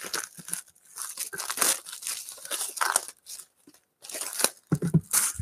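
Plastic wrapping on a box of sports cards being torn open and crinkled, in quick, irregular crackles, with a short low thump near the end.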